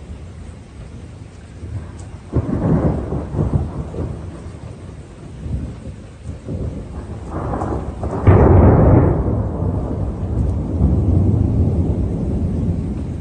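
Thunder: a crack about two seconds in that rumbles for a couple of seconds, then a louder clap about eight seconds in that rolls on as a long low rumble.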